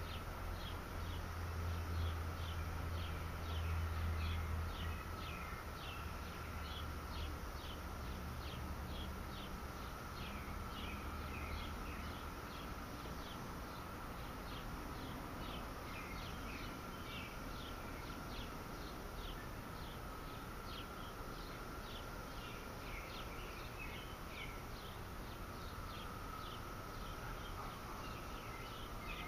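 Outdoor ambience with a steady run of short, high, thin chirps, about two a second, over a faint steady high hum. A low rumble is loudest in the first few seconds and fades out about twelve seconds in.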